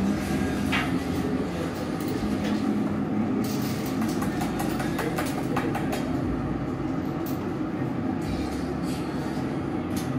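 Steady roar of a glassblowing studio's gas-fired furnace and glory hole burners with their blowers, with a few faint clicks and taps of tools.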